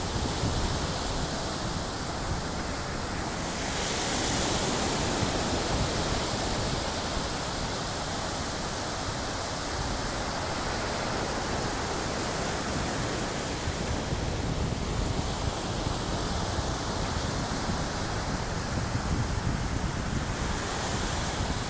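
Small surf breaking and washing up the sand in a steady hiss that swells twice, with wind rumbling on the microphone.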